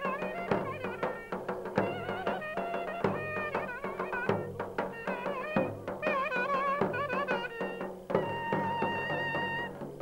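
Turkish village wedding music: a reed wind instrument playing an ornamented, wavering folk melody over davul drum strikes, holding one long steady note near the end.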